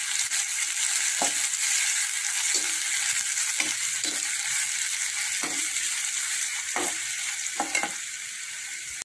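Chopped onion and garlic sizzling in hot groundnut oil in a steel pan, frying in the first stage of sautéing. A slotted spatula stirs them, scraping and knocking against the pan several times.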